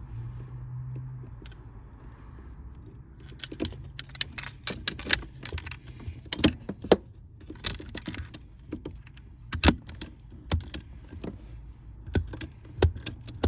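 Cheap hand rivet gun being squeezed over and over on a 1/8-inch pop rivet, giving irregular metallic clicks and clacks, the loudest about halfway through and near the end, as the rivet fails to set.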